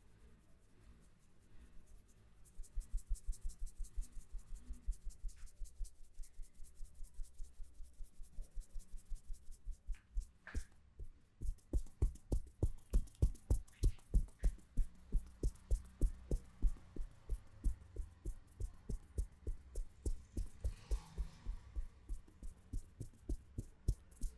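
A barber's hands striking quickly and rhythmically in a percussive Indian head massage: a steady run of slapping taps, about four a second, starting about two and a half seconds in and getting louder toward the middle.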